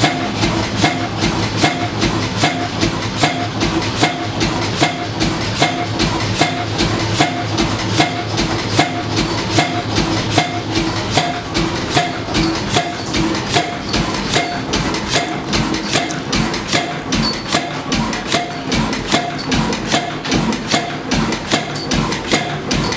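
Large horizontal stationary engine with twin flywheels running steadily, its valve gear clicking and clattering in an even rhythm of about two to three knocks a second.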